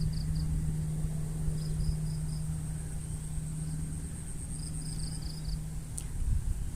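Insects chirping and trilling: short runs of high chirps over a fast, steady high trill, with a steady low hum and a low rumble underneath. The chirping and hum fade out a little past halfway, and a single click is heard near the end.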